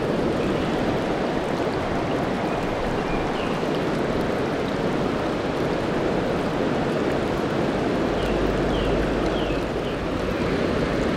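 Steady rushing of the Tama River's mountain-stream water, with a few faint short high chirps now and then.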